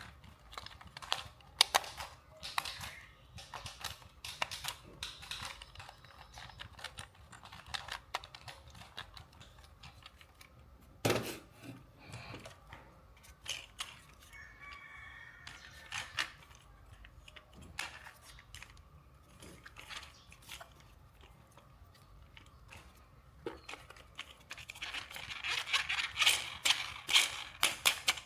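Toy packaging being handled and opened: scattered clicks and taps with rustling and tearing of packaging, turning into a denser stretch of rustling near the end.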